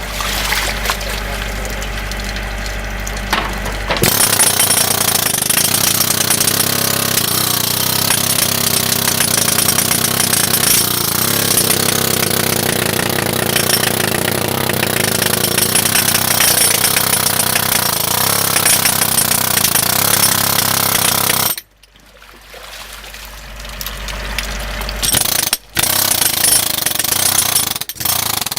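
Jackhammer hammering in sheet pile preparation: a quieter steady run at first, then hard continuous hammering from about four seconds in. It cuts off suddenly about three quarters of the way through, then starts again with two brief stops near the end.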